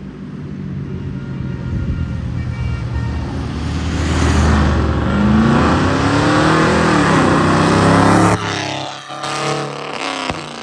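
Dodge Challenger muscle car driving past under power. Its engine note grows louder as it approaches and passes, then drops off sharply about eight seconds in as the car pulls away.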